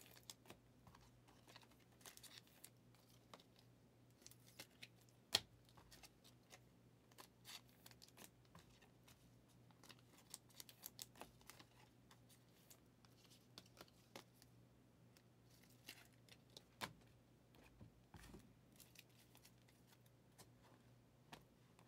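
Faint rustling, tearing and clicking of trading-card pack wrappers being opened and cards being handled, with a sharp click about five seconds in. A low steady hum runs underneath.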